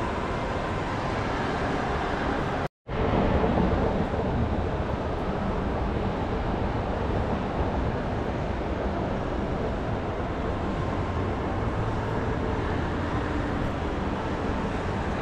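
Steady background rumble of a busy place, with no clear single source, cut by a brief total dropout a little under three seconds in.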